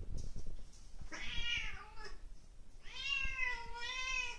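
Bengal cat meowing twice: a short call about a second in, then a longer, wavering call about three seconds in.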